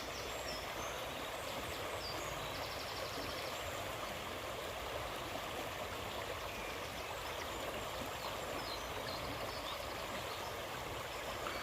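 Steady rushing of a nearby river, an even flow with no change, with a few faint high chirps and one short rapid trill about three seconds in.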